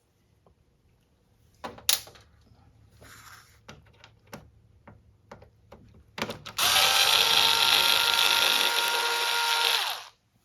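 A few light handling clicks and knocks, then a power screwdriver or drill runs steadily for about three and a half seconds and winds down, backing out the screws that hold the dehumidifier's control board to its panel.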